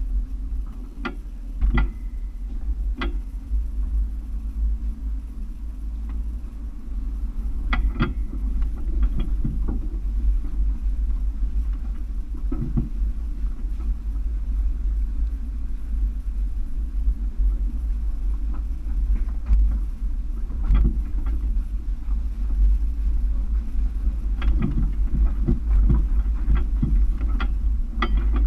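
Toyota FJ Cruiser driving slowly over a rocky creek bed: a steady low rumble from the vehicle, with irregular knocks and clunks as the tyres go over rocks.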